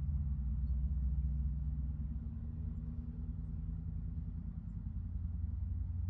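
Steady low rumble of an engine, with a faint hum that shifts slightly in pitch; it eases a little in loudness about two seconds in.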